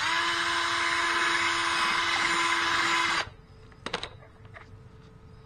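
Power drill spinning up and running at a steady speed for about three seconds, then stopping abruptly, followed a second later by a couple of brief clicks.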